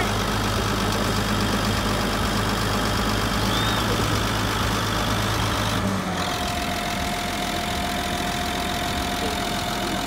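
Caterpillar D6N crawler dozer's diesel engine idling steadily. About six seconds in the sound changes abruptly, and a steady higher whine runs over the low idle.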